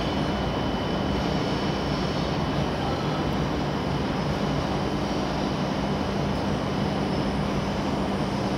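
Steady mechanical hum and whoosh of an elevated railway station, with a faint constant high whine over it; the level does not change and no train passing close by is heard.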